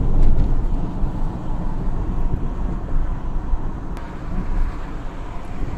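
Wind buffeting the microphone: a loud, low, unsteady rumble, with a faint click about four seconds in.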